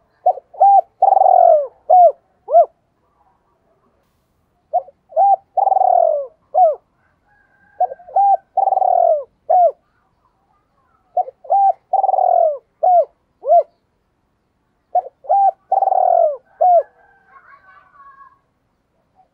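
Spotted dove cooing: five phrases about three to four seconds apart, each two short notes, a long rolling coo, then two short trailing notes, the 'two-tail' call. Faint chirps near the end.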